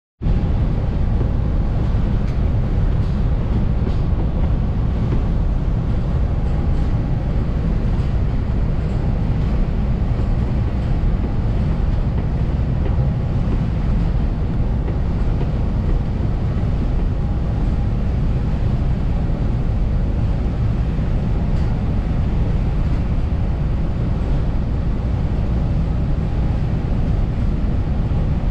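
Steady low rumble of a passenger train running at speed, heard inside the cab car CDTX 6962: wheels rolling on the rails.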